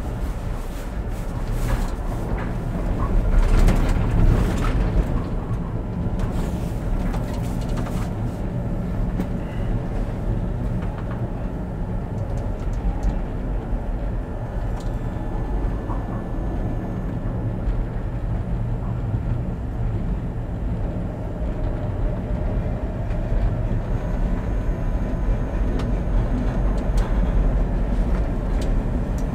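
Oslo electric tram running along the track, heard from inside the driver's cab: a steady low motor and running hum. About three to five seconds in it grows louder and harsher, with sharp clicks.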